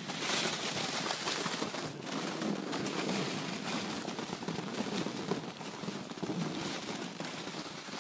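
Homemade plastic pulk sled dragged through deep snow: a continuous crunching, hissing scrape, mixed with footsteps crunching in the snow. It starts suddenly and runs on without a break.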